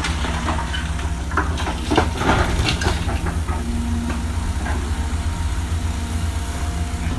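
Engine of demolition machinery running steadily, with scattered knocks and clatter of debris in the first few seconds.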